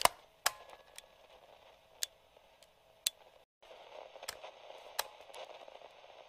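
Faint static hiss with scattered sharp clicks and pops. It cuts out briefly about three and a half seconds in and returns as a grainier crackle, as from an old radio.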